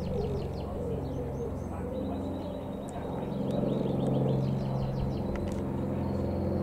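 Britten-Norman Islander's twin piston engines and propellers droning steadily as it flies low overhead, growing louder about two-thirds of the way in. A small bird chirps rapidly and repeatedly over the engine sound.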